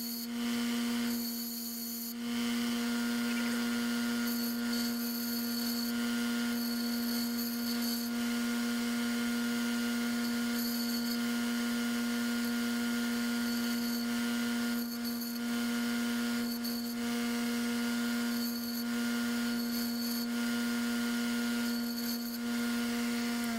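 JET bench grinder running with a steady hum while a high-speed steel fly cutter bit is pressed against its stone wheel in repeated short bouts of grinding, with pauses between as the bit is checked.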